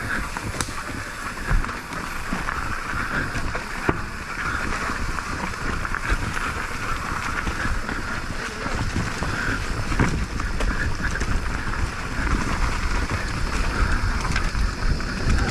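Mountain bike rolling down a dirt trail: a steady rush of wind and tyre noise with scattered knocks and rattles from the bumps.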